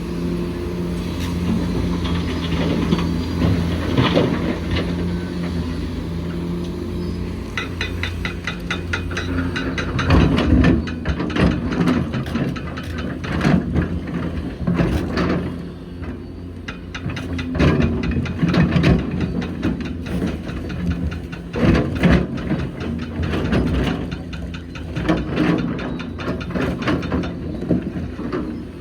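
A Hitachi Zaxis 490LCH excavator's diesel engine runs steadily under load. From about ten seconds in there are repeated loud clattering bursts, typical of bucket loads of rock and dirt being dropped into a dump truck's bed.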